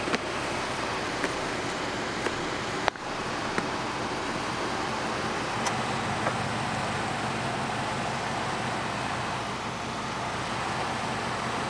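A vehicle engine running steadily under a constant rushing noise, with a few faint clicks.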